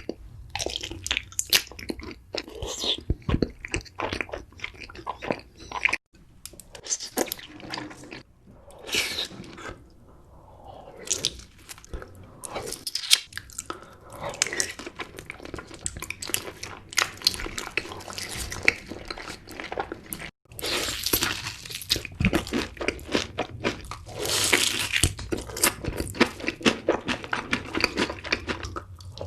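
Close-up eating sounds: crunchy food being bitten and chewed, with many sharp crackling crunches. The sound breaks off abruptly twice, about six and twenty seconds in.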